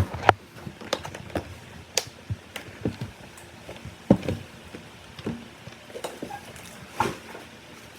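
Cardboard carton being handled and opened by hand: irregular knocks, taps and scrapes against the box.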